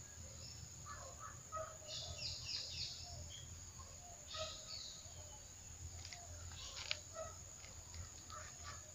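Scattered bird chirps over a steady high-pitched hiss. Under them is faint gritty rustling, with a few sharp clicks near the end, from hands turning a soil-and-compost potting mix in a plastic basin.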